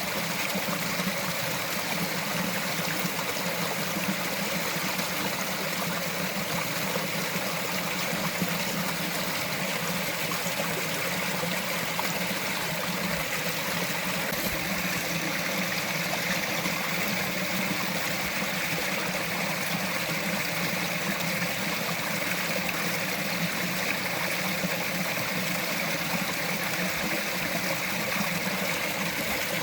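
Small mountain forest stream running, a steady trickling wash of water with no breaks.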